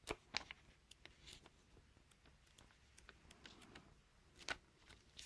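Faint, scattered paper rustles and small ticks as the pages of a thin comic booklet are turned by hand, with the clearest ones just after the start and about four and a half seconds in; otherwise near silence.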